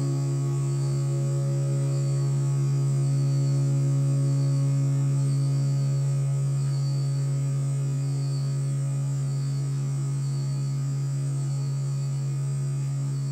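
Steady, loud low hum, with fainter held tones above it that fade away over the first few seconds.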